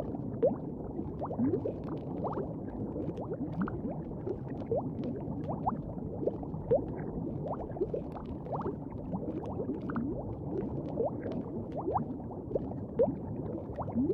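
Steady bubbling and gurgling of liquid, with many short rising blips like bubbles popping.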